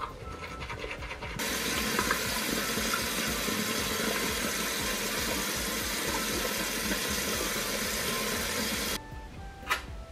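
Bathroom sink tap running in a steady stream, switched on about a second in and shut off near the end. Before the water starts there is a quieter scratchy sound.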